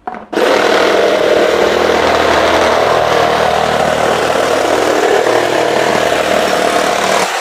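Xenon CDJS1845 18 V cordless jigsaw cutting through 12 mm plywood with its pendulum (orbital) action set to 3. It runs steadily from about a third of a second in and cuts off suddenly at the end.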